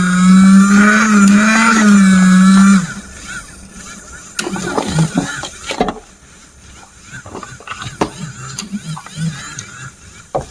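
Electronic sound effect from an RC toy: a loud buzzing tone that wavers in small pitch steps, cutting off about three seconds in, followed by quieter scattered clicks and knocks.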